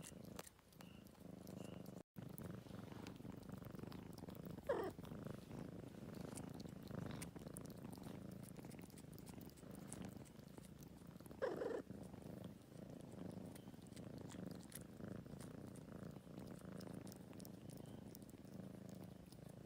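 Domestic cat purring steadily and faintly while grooming, with two brief louder sounds about five and twelve seconds in.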